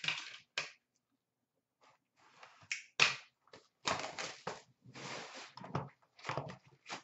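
A cardboard hobby box of trading cards being unwrapped and opened by hand: a run of crinkling wrapper and cardboard rustles and crackles, starting about two seconds in.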